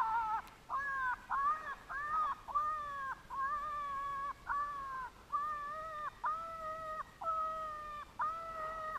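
Electronic predator call playing a looped animal distress cry: a run of short, high, even-pitched cries, about one and a half a second, each dropping off at its end. It is used to lure coyotes in.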